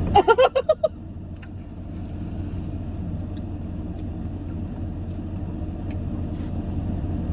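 Steady low rumble of a car, with a short burst of voice about half a second long at the very start.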